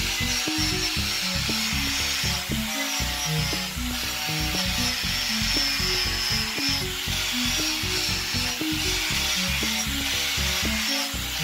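An angle grinder fitted with a polishing disc rubs over a stainless steel pipe, making a steady high whine and hiss that dips briefly a few times. Background music with a melodic bass line plays under it.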